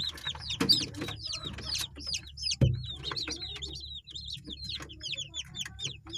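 A flock of kampung chickens calling, with many short high-pitched chirps overlapping continuously. A single thump sounds about two and a half seconds in.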